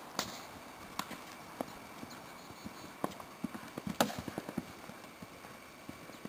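Ridden pinto horse cantering on grass: soft, uneven hoofbeats with a few sharp knocks, the loudest about four seconds in.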